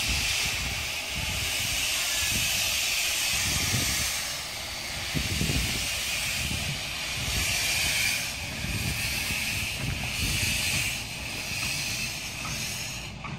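Steam hissing from a Romney, Hythe and Dymchurch Railway 15-inch-gauge steam locomotive, blowing from the cylinder drain cocks at the front of the engine. The hiss swells and fades in uneven surges over a low rumble.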